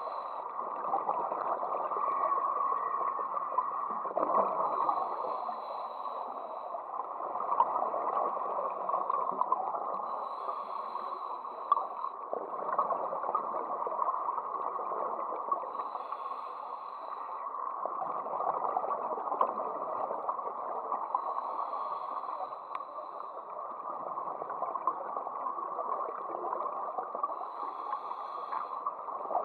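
Scuba diver breathing through a regulator, heard underwater: a bubbling exhalation about every five to six seconds, five times, over a steady muffled rush of water.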